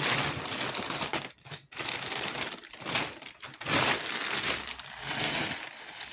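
Packaging being handled and crinkled in uneven stretches, with brief pauses, as the boxed iPad is pulled out of its wrapping; it stops abruptly at the end.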